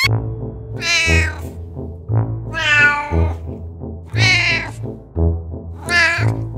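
A tabby cat meowing four times, the calls evenly spaced about two seconds apart, over background music with a steady beat.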